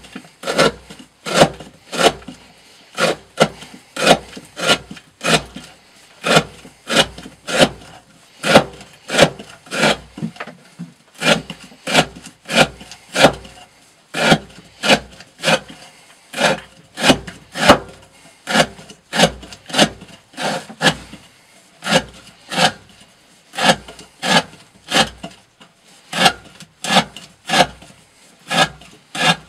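A fixed-blade S35VN steel knife shaving curls off a block of wood in quick repeated strokes, about two a second, each stroke a short scrape of the edge through the wood.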